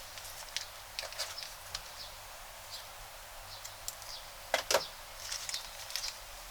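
Crunchy slime being handled, giving scattered small crackles and clicks, with two louder pops in quick succession about four and a half seconds in.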